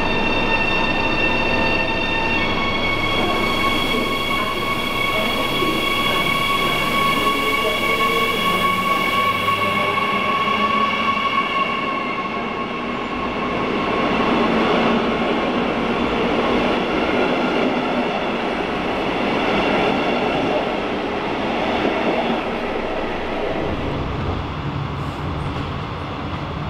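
DB class 147 electric locomotive hauling double-deck coaches, pulling into an underground platform, with several steady high-pitched squealing tones over the rumble of the wheels as it slows. Near the end the sound changes to a steady low hum inside one of the double-deck coaches.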